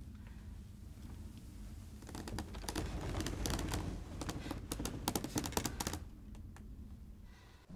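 A quick, irregular run of small sharp clicks and taps, starting about two seconds in and lasting about four seconds, over a low steady hum.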